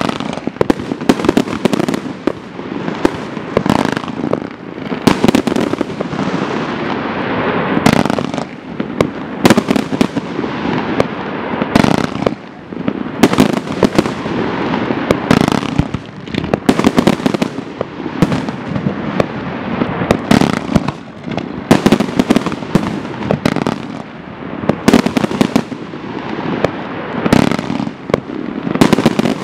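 A Dominator 90-shot W-shape fireworks cake firing: a steady string of sharp launch and burst reports, often one or two a second, with continuous hissing noise from the shots between them.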